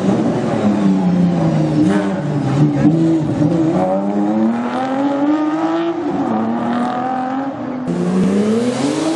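Datsun Z rally car's straight-six accelerating hard, its pitch climbing, dropping at a gear change about six seconds in and climbing again. Near the end it cuts to a Porsche 911's flat-six accelerating away.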